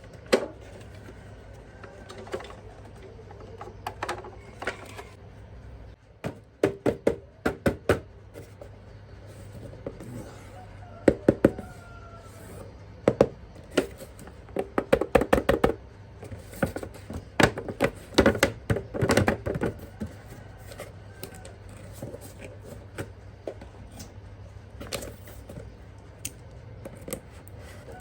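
Objects being handled, giving irregular clicks and knocks in short quick clusters, most of them from about six to twenty seconds in, over a faint steady low hum.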